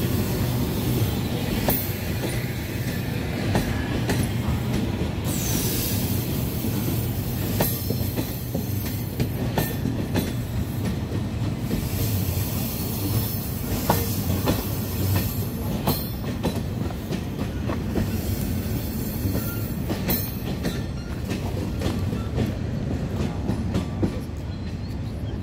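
CNR-built passenger coaches of a State Railway of Thailand special express rolling past as the train pulls out: a steady rumble with many irregular wheel clicks over rail joints, and a brief high wheel squeal about five seconds in.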